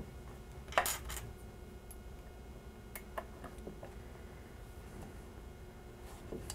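Allen key clinking as it starts screws into a wooden ham stand: one sharp metallic clink a little under a second in, then a few faint light clicks.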